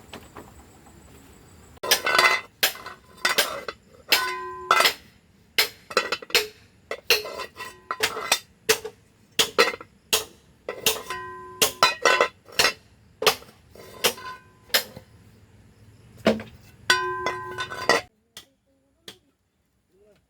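Repeated sharp strikes of a metal tool, about one to two a second, several leaving a short metallic ring. They stop near the end.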